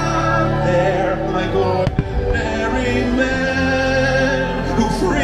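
Fireworks-show soundtrack music with singing, with a single sharp firework bang about two seconds in.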